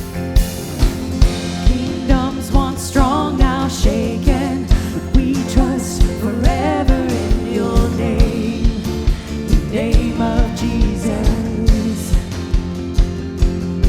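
Worship song: a lead singer over a band, with a steady kick-drum beat.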